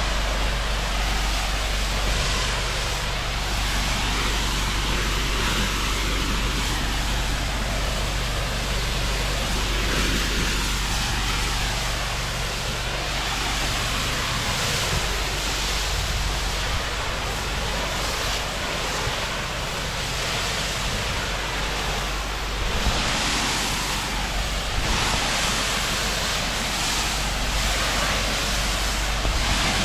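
Pressure washer rinsing patio slabs: a steady hiss of high-pressure water spray over a steady low hum.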